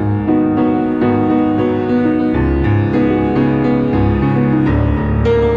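Grand piano played solo: improvised jazz, with chords over a moving bass line that drops lower about halfway through.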